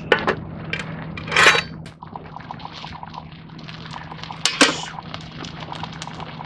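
Metal cookware and utensils clinking and knocking, with a brief scrape about a second and a half in and two louder knocks near the end.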